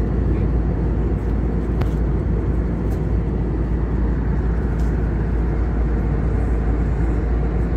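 Steady low rumble inside the passenger cabin of an Airbus A321neo: engine and cabin noise.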